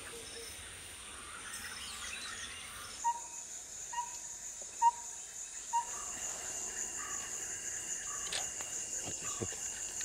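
Tropical forest ambience: a steady high-pitched insect drone, with a bird repeating short single whistled notes about once a second from a few seconds in.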